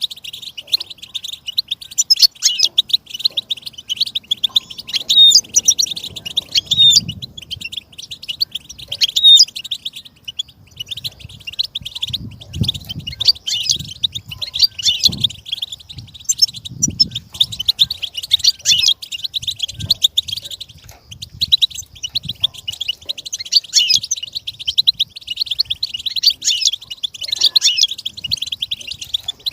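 Goldfinch song: a fast, unbroken stream of twittering chirps and trills.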